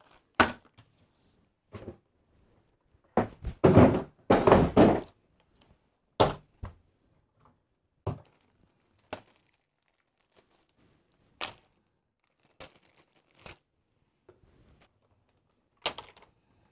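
Scattered knocks and thunks of hard plastic as an RC tank and its parts are handled and set down on a table, with a denser run of handling noise about three to five seconds in.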